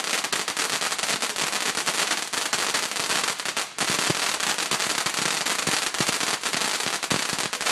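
Fireworks crackling: a rapid, continuous stream of small sharp pops, breaking off briefly about three and a half seconds in and then carrying on.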